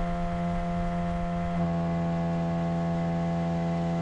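Boat motor running steadily with a constant droning pitch that shifts slightly about one and a half seconds in.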